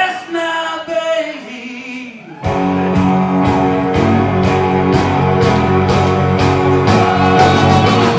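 Live blues-rock band with electric guitars, bass guitar, drums and Hammond organ. A quieter stretch of wavering held notes gives way, about two and a half seconds in, to the full band playing loudly, with the drums keeping a steady beat about twice a second under held chords.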